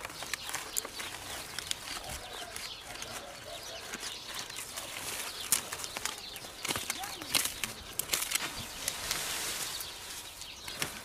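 Dry straw and palm litter rustling and crackling as it is pushed aside by hand and with a rod, with irregular small snaps and clicks, while searching around a hole for a cobra.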